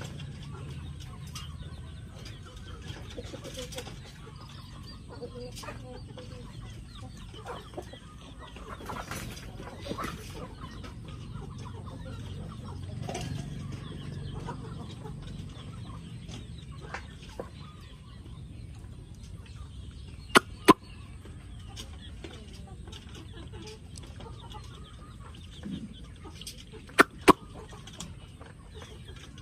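Chickens clucking off and on. Two pairs of sharp, loud clicks stand out, one about two-thirds of the way through and another near the end.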